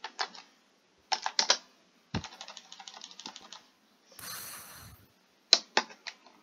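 Computer keyboard typing in short, uneven bursts of keystrokes, with a brief hiss a little after four seconds in.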